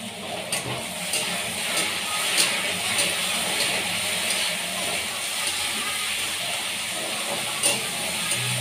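Cauliflower and potatoes frying in a kadhai with a steady sizzle, a metal ladle clinking and scraping against the pan about every half second for the first few seconds and once more sharply near the end.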